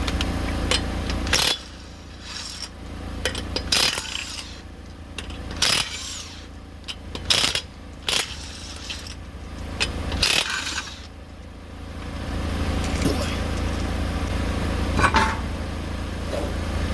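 Impact wrench run in several short bursts, about eight in all, spinning lug nuts off a wheel. A steady low hum drops out about a second and a half in and comes back near the two-thirds mark.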